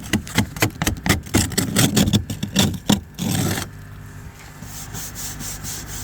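Quick, repeated scraping strokes on snow and ice, about three or four a second, ending just after three seconds with one longer scrape. A steady low hum runs underneath.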